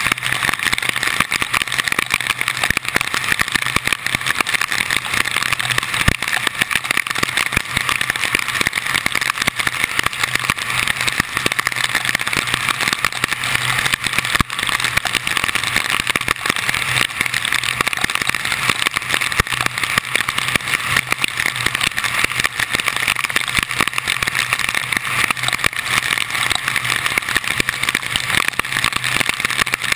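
Car driving on a rain-soaked road in heavy tropical-storm rain, heard from a GoPro mounted outside on the hood: a steady rush of wind, rain and tyre spray, with many small ticks of raindrops striking the camera and a low steady hum from the car.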